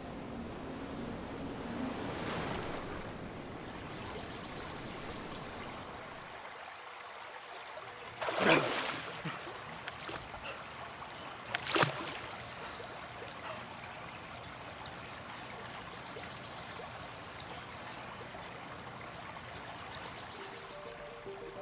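Steady wash of open water, with a loud splash about eight seconds in as a person surges up out of chest-deep water, and a second, shorter splash some three seconds later.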